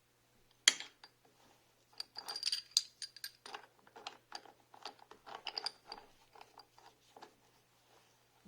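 Small metal parts clinking and clattering as they are handled: one sharp clank about a second in, then a run of quick metallic taps and clicks with a light ringing note.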